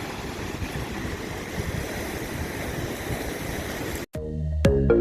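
Steady rush of ocean surf and wind, which cuts off abruptly a little after four seconds. Electronic music with a regular beat starts near the end.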